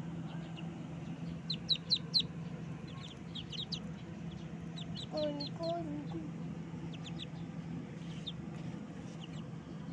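Newborn ducklings peeping: many short, high chirps, thickest in the first half, with one lower, two-part call about five seconds in.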